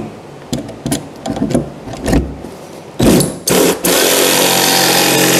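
A few knocks and clatters of parts being handled, then about four seconds in an electric shop motor is switched on and runs steadily, a loud even rushing noise over a low hum.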